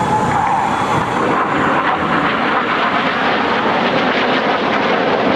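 Jet engine noise from a formation of Red Arrows BAE Hawk T1 jets flying past: a steady rushing sound that thickens a little about two seconds in.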